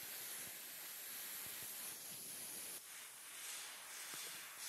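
Airbrush spraying paint with a steady hiss that dips about three seconds in and then wavers.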